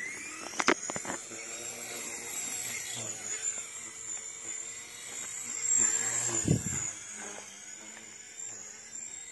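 WLtoys V911S micro RC helicopter's electric rotor motor spinning up with a rising whine at lift-off, then running with a steady high whine that wavers slightly as it flies. A short low thump comes about six seconds in.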